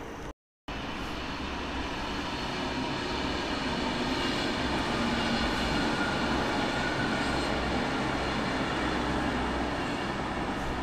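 Coupled DB class 442 Talent 2 electric multiple units running by, a steady rail rumble with a faint steady whine from the drive. After a brief cut-out near the start, the sound builds over a few seconds and then holds.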